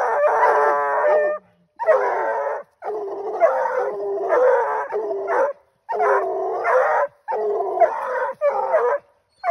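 Coonhounds barking treed at the foot of a tree, the bark that tells the hunter they have game up it: a long howl about a second and a half long, then a string of barks with short gaps between them.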